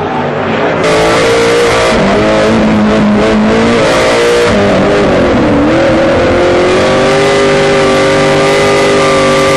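Engines of PRO-4 off-road race trucks at high revs, several at once with their pitches shifting. It gets louder about a second in, and about five seconds in one engine drops in pitch and climbs again.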